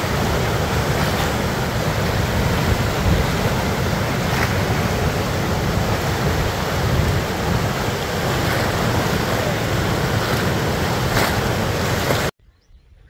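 Muddy canal water rushing through open sluice gates and churning in turbulent rapids below, a loud steady rushing noise that cuts off abruptly near the end.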